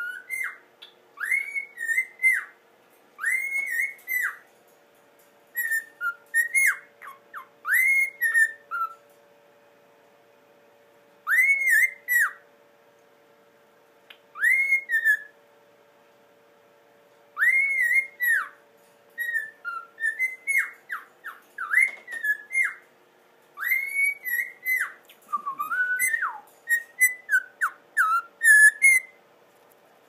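A cockatiel whistling a tune in short phrases of rising-and-falling notes, each about a second long, with pauses between them and quicker, choppier notes near the end.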